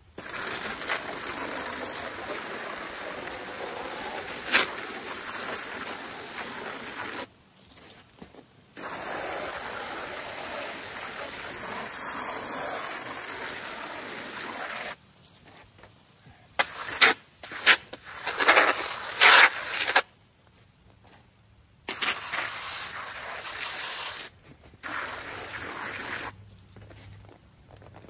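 Garden hose on its jet spray setting, a steady hiss of water that is turned on and off in stretches of several seconds. Past the middle it turns to louder, uneven splashing for a few seconds, as the jet strikes something, then two short sprays near the end.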